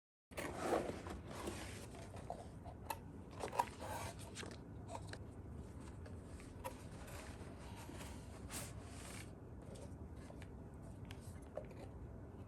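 Packaging being opened and handled: irregular rustling and scraping with scattered small clicks and knocks, busiest in the first few seconds, then quieter rustling.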